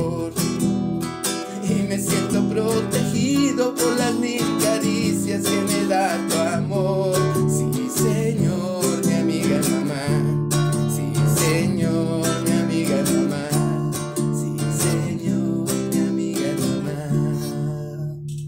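Acoustic guitar strumming chords, fading out near the end.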